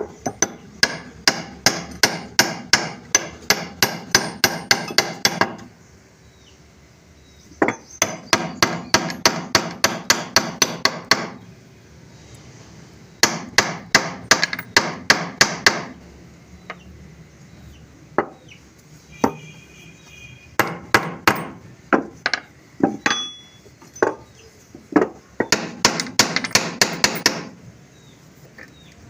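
A hammer striking a brass lever lock: runs of quick sharp blows, about three a second, broken by short pauses and a few single strikes. This is knocking the oiled lock apart so that its stuck levers come out.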